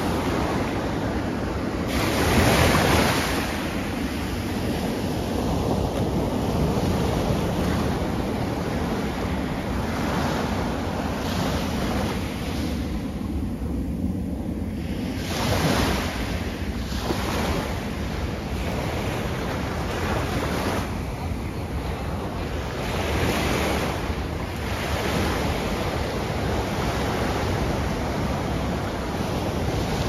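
Ocean surf breaking and washing up a sandy beach: a steady rushing wash that swells louder every several seconds as waves break, the loudest swell a couple of seconds in.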